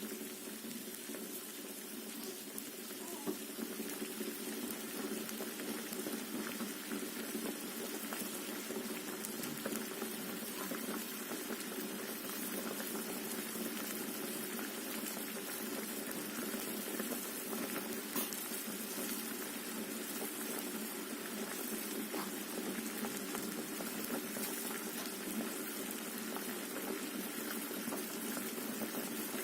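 Water boiling in a cooking pot with potatoes and eggs, a steady dense bubbling full of small pops, growing slightly louder over the first few seconds and then holding steady.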